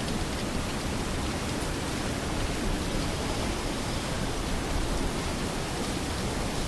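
Steady, even hiss-like noise with no distinct knocks, calls or footsteps standing out.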